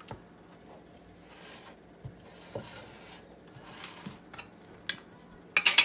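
Wooden spoon stirring a thick cream cheese and shredded cheese mixture in a glass bowl: soft scraping and squishing with occasional light knocks, then a louder clatter of several quick knocks near the end.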